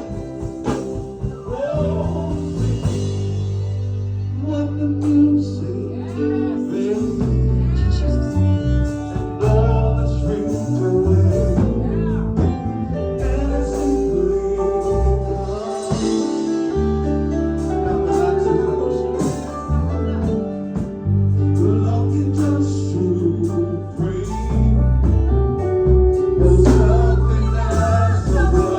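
Live gospel worship music: a band with deep sustained bass and chords playing under singing.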